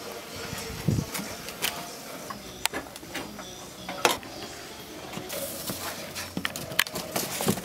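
Scattered sharp clicks and knocks, with a brief rustle a little past the middle: car parts and tools being handled, and a cardboard parts box being opened.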